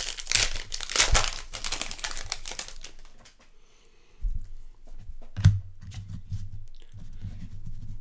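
Foil wrappers of baseball card packs being torn open and crinkled for the first three seconds or so. Then come low handling bumps, with one sharp knock about five and a half seconds in.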